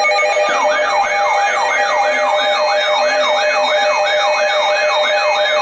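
Weather alert radio's electronic siren alarm: a fast repeating whoop, about four up-and-down sweeps a second, starting about half a second in. It sounds over a steady alert tone and marks the incoming severe thunderstorm warning.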